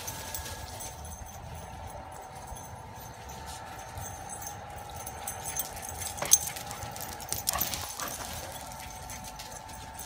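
Dogs running about on a patio: light movement noises with a few sharp knocks, the loudest about six seconds in. A steady hum runs underneath.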